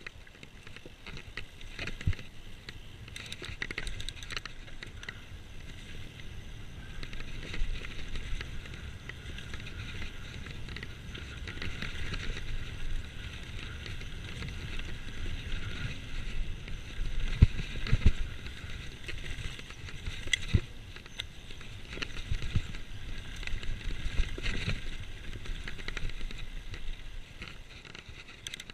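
Mountain bike riding down a dirt forest trail, heard from a camera mounted on the rider: a continuous rumble and rattle of tyres and bike over the rough ground, broken by sharp knocks from bumps, the loudest a pair of knocks about two-thirds of the way through.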